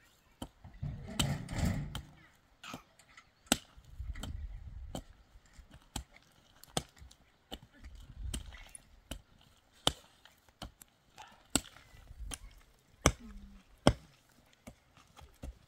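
Sharp knocks struck at irregular intervals, roughly one a second, like a tool hitting wood, with low rumbling noise between some of them.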